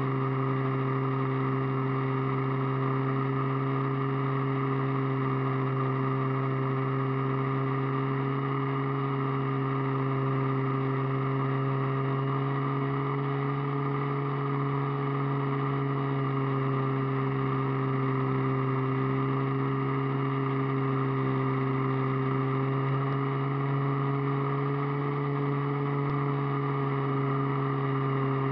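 Motor and propeller of a radio-controlled aircraft in flight, heard through its onboard camera: a steady drone whose pitch drifts a little up and down, with airflow hiss behind it.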